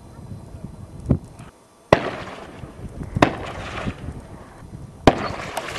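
Three gunshots from soldiers' rifles, sharp cracks a second or two apart, each trailing off in an echo lasting about a second. A duller thump comes just before the first shot.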